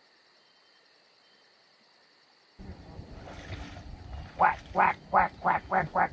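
Near silence, then outdoor background sound and, from about four seconds in, a fast, regular string of loud duck quacks, about three a second.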